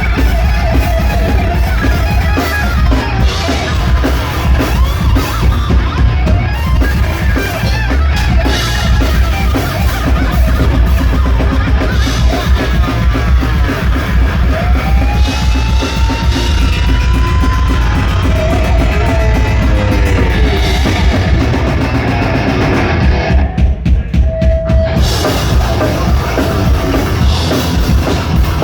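Heavy metal band playing live: distorted electric guitars, bass and a hard-hit drum kit. Lead guitar lines bend up and down in pitch through the middle. Near the end the band briefly stops, leaving one held guitar note, then crashes back in.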